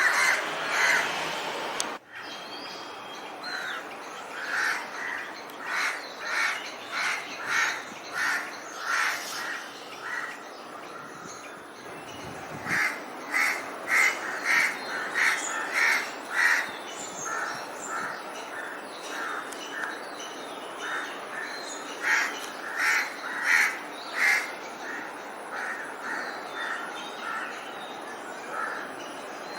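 Crows cawing in runs of several short, quick caws, about two to three a second, with lulls between the runs, over a steady outdoor hiss.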